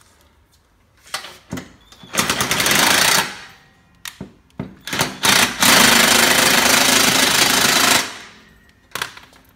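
Cordless impact driver hammering a bolt tight in bursts. First come a couple of brief blips, then a burst of about a second, then a few more short blips. A longer run of about two and a half seconds follows, and a last short blip comes near the end.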